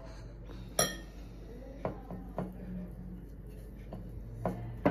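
A metal spoon clinks sharply against dishes about a second in, with a short ring, followed by a few lighter taps and a second sharp clink near the end, as walnut filling is spooned onto shredded kadayıf.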